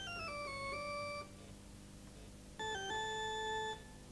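BBC Micro playing keyboard notes as electronic beeping tones: a quick run of about four notes stepping downward, then after a pause a second short phrase of held notes.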